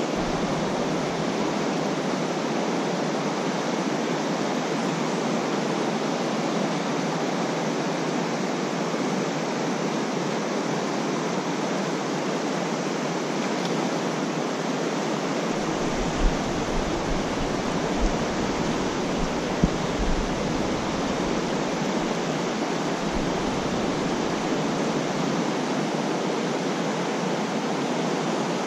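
Fast creek water rushing over a shallow riffle, a steady hiss. From about halfway to three-quarters of the way through, a low rumbling joins it with a few short knocks.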